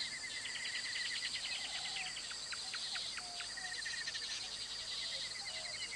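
Outdoor birds and insects chirping: a steady run of rapid high chirps, with dense ticking chirps in the first half and a few short, faint whistled calls in the middle.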